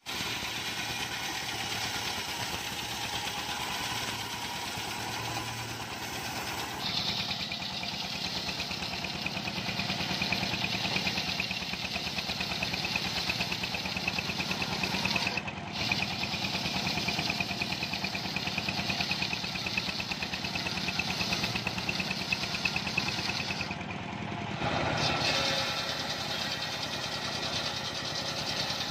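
Engine-driven homemade circular sawmill running steadily while its large blade rips mahogany logs into beams and boards. The engine's even pulse runs under a hissing cutting noise that gets louder about seven seconds in.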